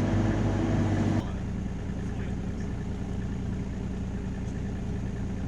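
Compact excavator's diesel engine running steadily at working revs. About a second in, the sound drops suddenly to a quieter, lower steady hum.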